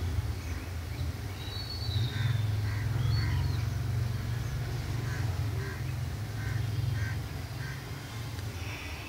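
Steady low rumble of wind buffeting the phone's microphone, with a bird giving a string of short calls from about two seconds in.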